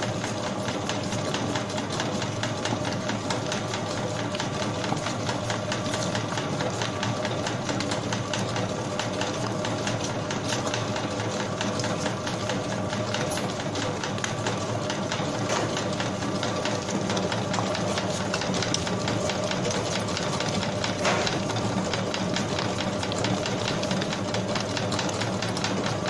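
Commercial spiral dough mixer running steadily, its spiral hook kneading a large batch of bread dough in a steel bowl. The motor hums with a fast, even mechanical rattle.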